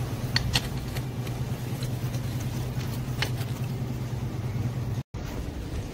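Small metallic clicks as the big timing-chain roller is fitted onto the cylinder studs of a Hero Splendor Plus engine, over a steady low hum. The sound drops out for a moment near the end.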